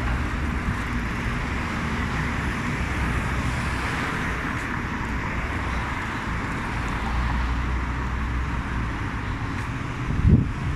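Steady road traffic noise from cars on the road, with a brief low thump near the end.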